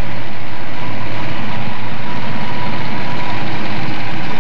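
Freshly rebuilt Boss 302 V8 engine running steadily just after it has been started, still in its break-in period.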